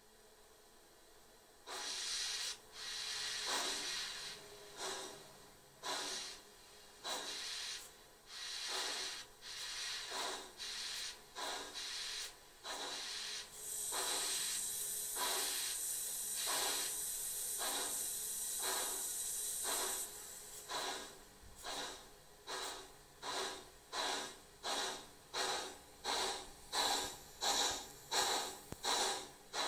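ESU DCC sound decoder in a 1:24 scale Class 59 Garratt model playing steam-locomotive exhaust chuffs, starting about two seconds in, slow and uneven at first and then quickening into a steady beat toward the end. A steady hiss runs for several seconds in the middle.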